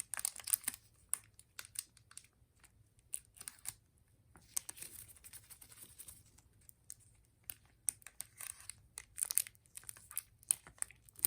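Crinkling and rustling of a plastic protective sleeve being handled around a Zippo lighter, with scattered light clicks and taps.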